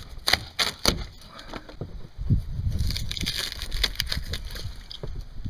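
Water-damaged styrofoam core of an RV bunk panel being broken and pulled out by hand: crackling and crunching, with a few sharp snaps in the first second and denser crackling from about two seconds in.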